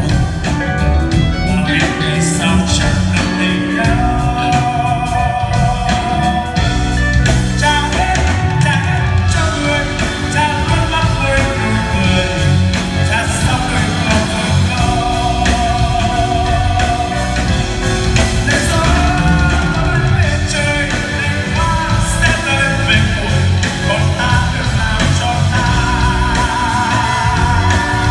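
Male vocalist singing live over a full rock-pop band, with several long held notes sung with vibrato.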